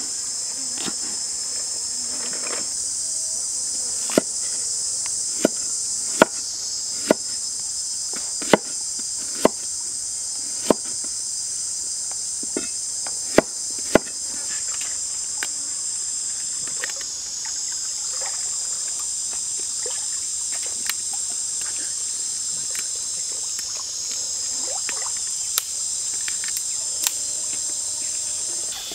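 A large knife chopping and slicing on a wooden cutting board: irregular sharp knocks, most of them in the first half. Under them runs a steady high drone of insects.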